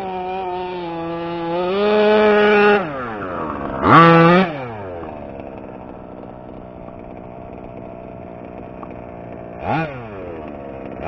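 Two-stroke gas engine of a 1/5-scale Baja 5T-style RC truck. It is held at steady high throttle, drops off about three seconds in, and is blipped sharply up and back down at about four seconds. It then runs low and steady, with another quick blip near the end.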